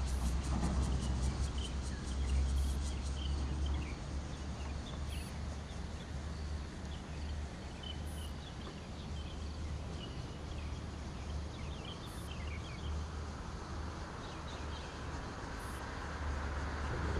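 Outdoor ambience: scattered short bird chirps over a steady low rumble. Near the end, the hiss of road traffic rises.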